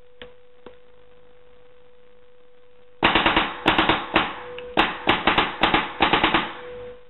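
Zap ZXS600e electropneumatic paintball marker dry firing on compressed air: after two faint clicks near the start, a rapid string of loud sharp air blasts, about twenty in three and a half seconds, begins about three seconds in. Really loud.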